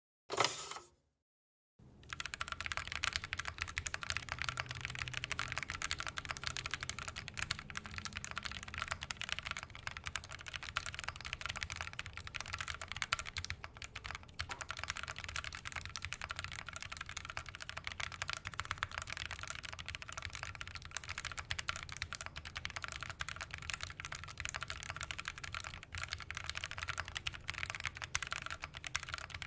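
Continuous rapid typing on a Bear65 Alice-layout mechanical keyboard with Purple Cow switches, a polycarbonate plate and GMK keycaps, unmodded; it starts about two seconds in, after a short sound and a brief silence. The typing sounds subdued, which the reviewer puts down to the quieter switches, the polycarbonate plate and the cuts in the PCB letting sound leak out through the bottom.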